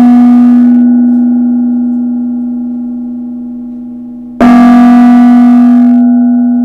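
Small hand-hammered Nepalese nipple temple gong ringing with one steady low note and its overtones, slowly fading, then struck again with a mallet about four and a half seconds in and ringing out loud. The one-piece hammered nipple gives a focused note that goes pretty straight rather than a splashy one.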